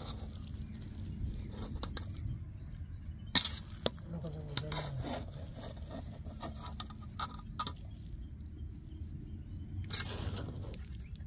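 Metal spoon scraping and clinking against an aluminium pot as cooked biryani is stirred and lifted, in irregular short clinks, the sharpest about three and a half seconds in.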